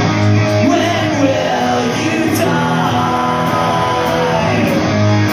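Live rock band playing loudly: electric guitars, bass and drums, with a singer's voice over them.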